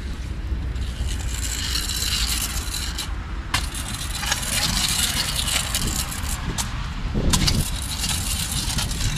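Skateboard wheels rolling over concrete, a steady gritty rumble, with a sharp clack about three and a half seconds in and another around seven seconds.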